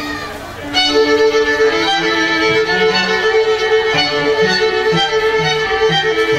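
A small string ensemble of violins and cellos plays a classical piece, with long held upper notes over a moving cello line. It is softer for the first second, then the full ensemble comes back in.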